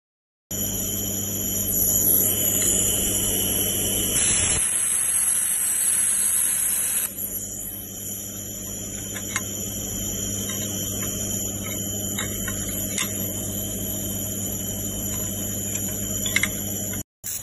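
Steady electrical machine hum with a high-pitched whine over it, louder for the first seven seconds and then a little quieter, with a few faint ticks.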